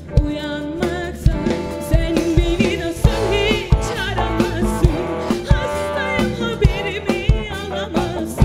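A woman singing a pop song into a microphone over a backing track with a steady drum beat, her voice wavering in vibrato on held notes.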